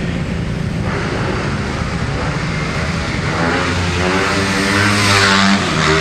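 Motorcycle engines running in street traffic; one engine's drone grows louder over the second half as a bike comes close.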